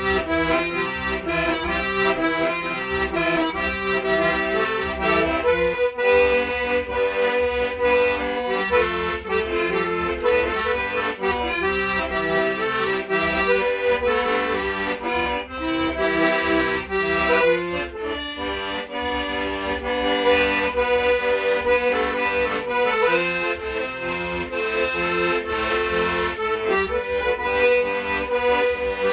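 Accordion playing a quick tune, the melody notes changing rapidly over a rhythmic bass underneath.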